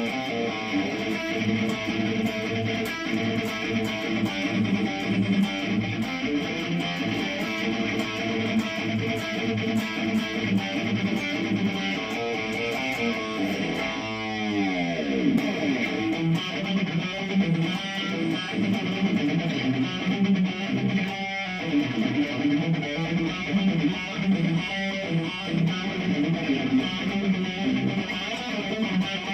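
Electric guitar played through a Cuvave guitar effects unit into a small computer speaker, strummed chords and riffs. About halfway through, the pitch glides steeply downward before the playing picks up again.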